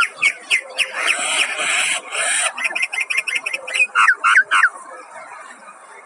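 Mynas calling: quick runs of short, sweeping whistled notes, broken by a harsh rasping call about a second in that lasts over a second, then more fast notes and sweeps until almost five seconds in.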